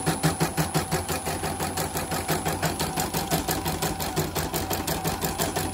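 CNY E900 portable embroidery machine stitching a test design after servicing: a steady rhythmic clatter of about six stitches a second over a steady motor hum.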